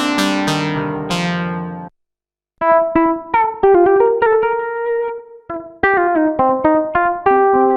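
Expressive E Osmose 49 synthesizer keyboard being played: a sustained chord that cuts off about two seconds in, then after a short gap a melodic phrase of short notes, with one held note bending upward in pitch.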